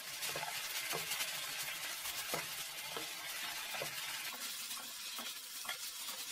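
Sliced bamboo shoots sizzling in oil in a metal frying pan as they are stirred and turned with chopsticks. A soft tap or scrape comes every second or so over the steady sizzle.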